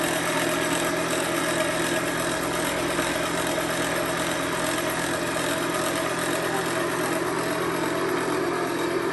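Toy cotton candy maker running: its small electric motor spins the sugar head with a steady hum and whir while it throws out pink floss.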